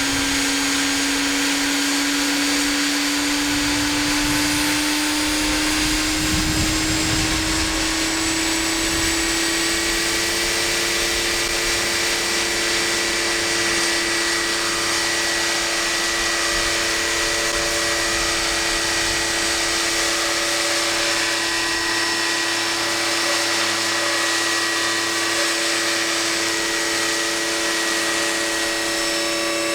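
Electric scale RC helicopter, a model of an Aérospatiale SA 315B Lama, in flight: the electric motor and rotors give a steady whine. The pitch rises a little over the first ten seconds or so, then holds steady. There is a low rumble a few seconds in.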